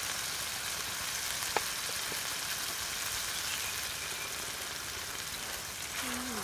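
Beef and vegetables sizzling steadily in a large hot pan, an even hiss. A single light click about one and a half seconds in, and a brief voice near the end.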